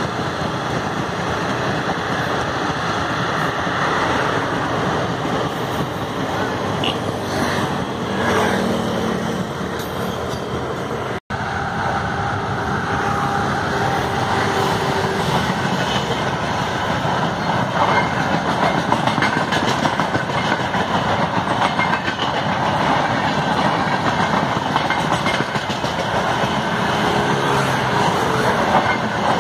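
Passenger train coaches rolling past close by in a steady rush of wheel and rail noise. About eleven seconds in the sound cuts out for an instant, and a second passing train follows, hauled by a WAP-7 electric locomotive, its coaches then running past.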